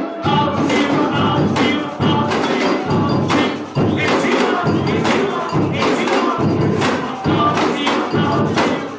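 Samba bateria, a drum corps of drums and hand percussion, playing a steady driving beat with sharp repeated strokes, the pattern falling into phrases of about two seconds.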